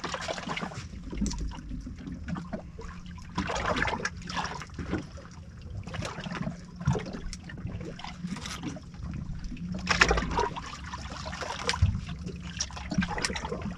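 Water splashing and trickling in irregular bursts, with a low steady hum underneath.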